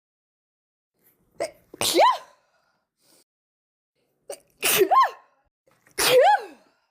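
A woman sneezing three times in a sneezing fit, about one every one and a half to three seconds. Each sneeze ends in a voiced 'choo' that rises and then falls in pitch, and the first two are each preceded by a short catch of breath.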